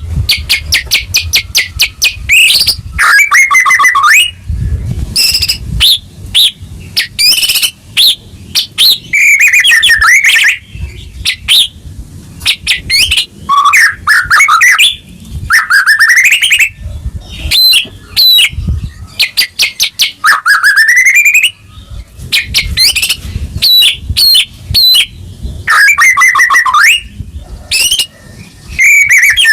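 White-rumped shama (murai batu) in full, loud song. It sings phrase after phrase of fast rattling trills and sliding, rising whistles, with short pauses between them.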